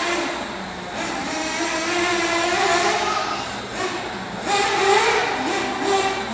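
Novarossi two-stroke nitro engine with tuned pipe in a Tekno NB48.3 1/8-scale buggy, revving up and dropping back again and again as the buggy is driven around the track, loudest about four and a half seconds in.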